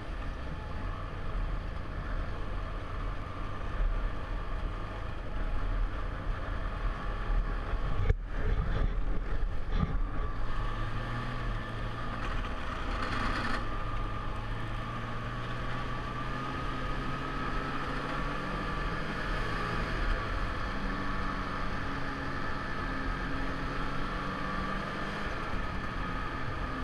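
Snowmobile engine running under way, heard through a helmet-mounted camera, with a steady high whine over it and the engine pitch shifting up and down with the throttle. There is a sharp knock about eight seconds in.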